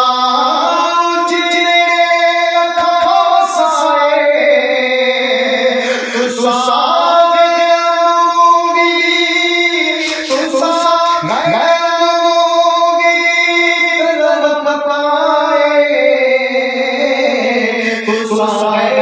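A man singing a Punjabi song unaccompanied, drawing out long held notes that bend and waver in pitch.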